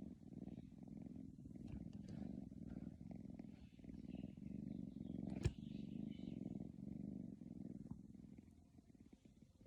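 A sleeping house cat snoring: a low, purring rumble that swells and dips with each breath and fades near the end. A single sharp click about halfway through is the loudest sound.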